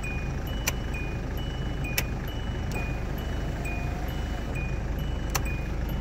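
High electronic beep alternating between two pitches, one beep about every half second, over a steady low rumble, with a few sharp clicks.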